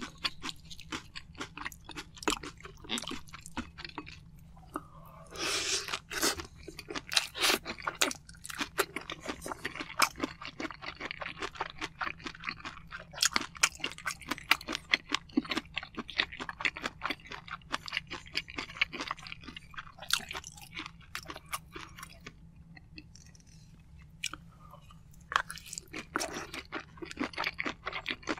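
Close-miked chewing of a mouthful of soy-sauce-marinated shrimp and rice: a dense run of small mouth clicks, easing off briefly a little after twenty seconds in.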